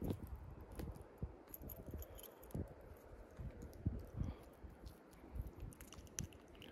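Handling sounds as a spinner lure is unhooked from a small landlocked salmon held in the hand: light metallic clinks and ticks of the lure and hook, with soft thumps and rubbing of hands close to the microphone.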